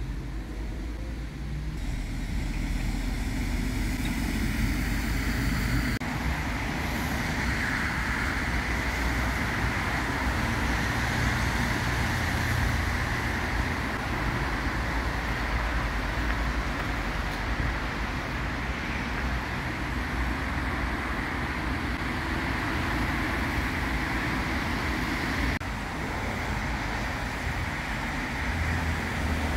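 Steady road traffic noise: cars and other vehicles passing on a road, a continuous wash of tyre and engine sound, with sudden shifts in level about six seconds in and near the end.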